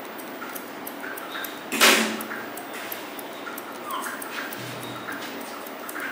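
A dog whimpering faintly over a steady background hiss, with one short, loud hiss-like burst about two seconds in.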